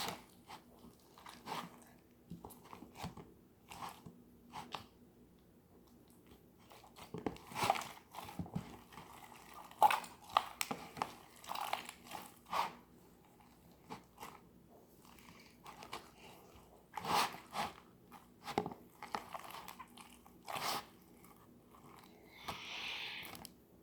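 Hands kneading and squishing slime mixed with Play-Doh: irregular sticky crackles and clicks, with a short hiss near the end.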